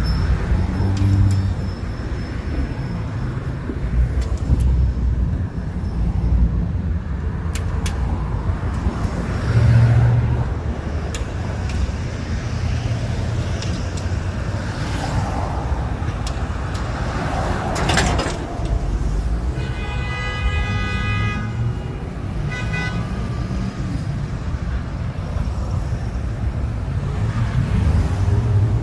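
Street traffic noise: a steady low rumble of passing vehicles. A vehicle horn sounds for about two seconds around two-thirds of the way through, then once more briefly.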